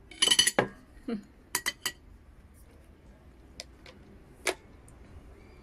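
Tableware being handled while eating and drinking: a ringing clatter near the start, then a scatter of single sharp clicks and taps.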